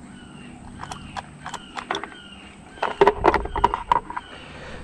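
Clatter aboard a fishing boat: scattered sharp clicks and knocks, then a louder cluster of knocks about three seconds in. A bird calls short falling notes in the background.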